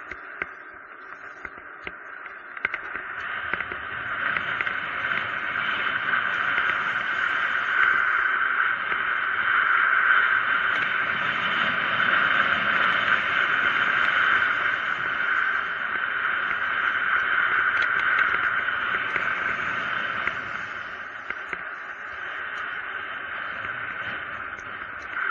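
Rushing wind and tyre noise of a mountain bike coasting fast down a paved road, a steady hiss that swells as speed builds and eases again near the end. A few small clicks and rattles are mixed in.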